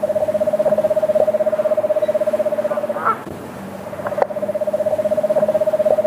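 Eastern screech owl giving its trill: a rapid, even run of repeated notes on a single pitch. It breaks off about three seconds in and starts again about a second later.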